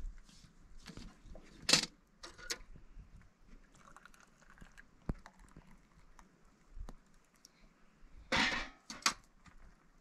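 Metal kettle and glass tea things being handled: a few separate metallic clinks and rattles, the sharpest about two seconds in and a longer rattle near the end.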